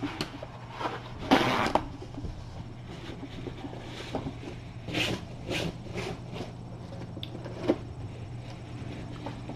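Rustling and soft handling noises as kittens are picked up and handled on a plush mat, the loudest a rustle lasting about half a second, one to two seconds in, with shorter rustles later, over a steady low hum.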